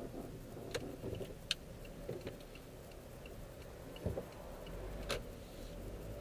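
Low, steady rumble of road and engine noise inside a moving car's cabin. A few sharp clicks stand out, about a second in, at one and a half seconds, and near the end, over faint quick ticking.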